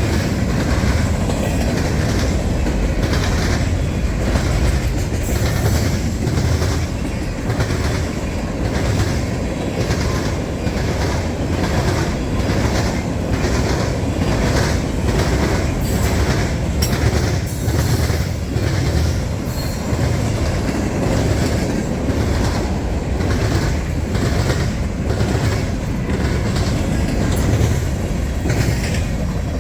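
A freight train's cars rolling past at close range: a steady rumble with regular clacks as the wheels cross rail joints, and some wheel squeal.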